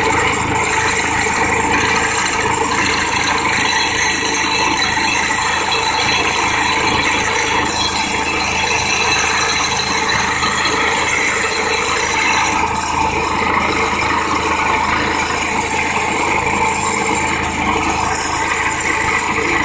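Hydraulic vibratory pile hammer clamped to a steel sheet pile, running continuously as it vibrates the pile: a loud, steady mechanical din.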